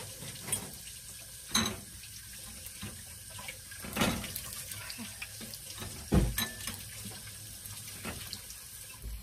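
Hot frying oil in a pan, still sizzling steadily just after the flame is turned off, with several sharp knocks of a utensil against the pan as a stuck fritter is pried out. The loudest knocks come about one and a half, four and six seconds in.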